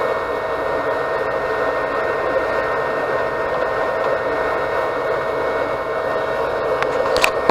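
Anycubic Chiron 3D printer running mid-print: a steady whir of its cooling fans with a constant hum, and a few short clicks near the end.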